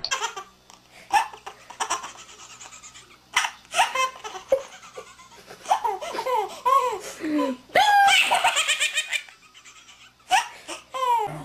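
Babies laughing hard: hearty belly laughs in repeated bursts, with a loud high-pitched squealing laugh about eight seconds in and a few sharp knocks between laughs.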